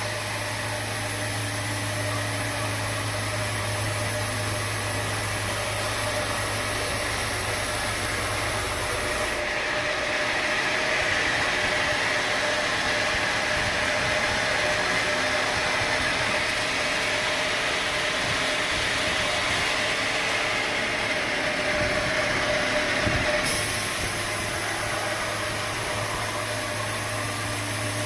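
Sawmill machinery running steadily, a continuous mechanical noise with a steady hum. The sound changes abruptly about a third of the way in, losing its low hum and growing a little louder, and switches back just as suddenly near the end.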